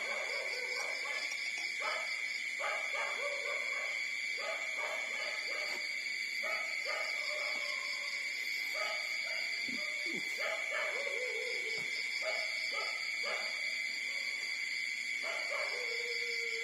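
Newborn puppies whimpering and squeaking while nursing, short pitched cries coming roughly once a second, some sliding down in pitch. A steady high-pitched tone runs underneath.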